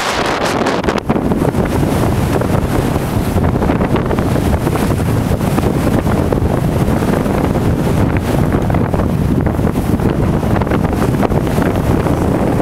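Strong blizzard wind blowing hard across the microphone: a loud, steady rush of wind noise with constant low buffeting.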